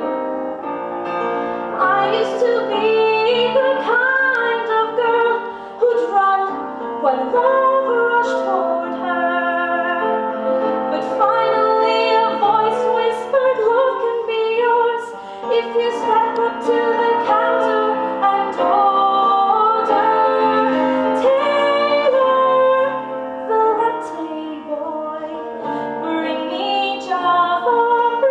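A woman singing a musical-theatre song in long held notes with vibrato over an instrumental backing.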